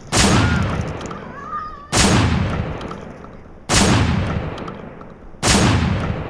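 Four gunshots, one about every two seconds, each a sharp bang followed by a long echoing decay.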